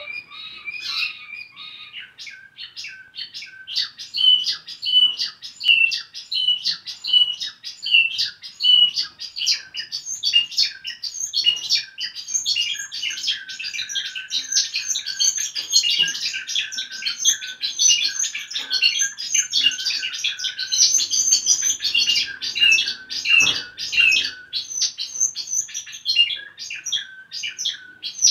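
Spanish Timbrado song canary singing in the discontinuous style, a long run of rapid repeated notes and trills. The notes come about two a second at first and pack into fast rolls from about twelve seconds in.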